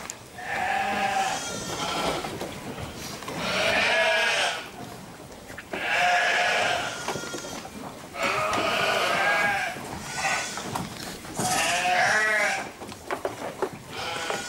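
Sheep bleating over and over: about six long, wavering calls with short gaps between them.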